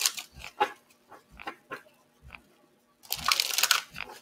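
A deck of oracle cards being handled and shuffled by hand: scattered soft taps and snaps, then about a second of dense shuffling about three seconds in.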